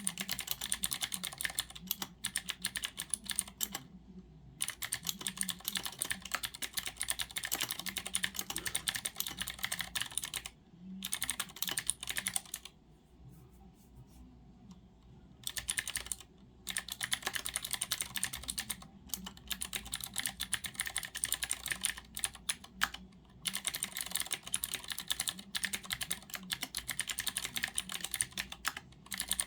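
Fast typing on a Leopold FC660M compact mechanical keyboard with clicky Cherry MX Blue switches: a dense stream of crisp key clicks. The typing breaks off briefly a few times, with the longest pause, a couple of seconds, about halfway through.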